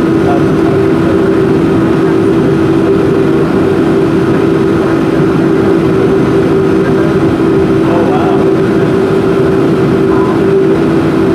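Boeing 737-400's CFM56-3 jet engines, heard from the cabin over the wing, running steadily at low power as the plane taxis. They make a constant two-note hum over a rumble.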